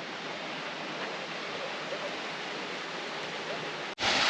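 Steady rushing of a mountain river. About four seconds in it cuts off for an instant and comes back louder.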